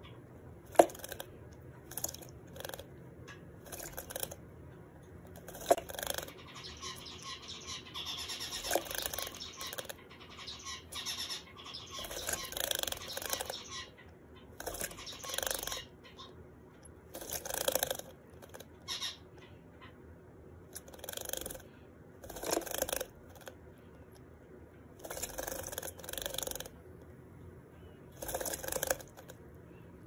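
Java sparrow bathing in a small plastic bird bath, splashing water in short bouts of wing-flapping every second or two, with a few sharp clicks. Zebra finch song and calls sound in the background.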